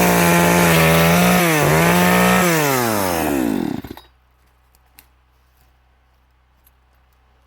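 Chainsaw engine running at high revs, dipping briefly about a second and a half in. From about two and a half seconds its pitch falls steadily and the engine stops just before four seconds, as the saw is shut off and winds down.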